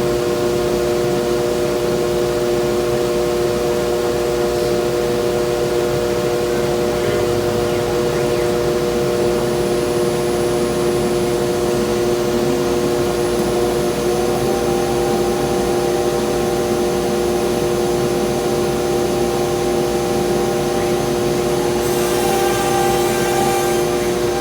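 An electric motor, such as a power tool's, running steadily with a constant whine made of several fixed tones over a rushing noise. A hiss joins it near the end.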